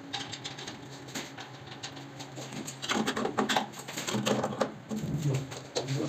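Quick run of clicks and taps from radiator-fitting work, played sped up, busier and louder from about halfway in.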